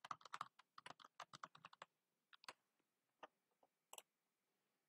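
Faint typing on a computer keyboard: a quick run of keystrokes for about two seconds, then a few scattered clicks.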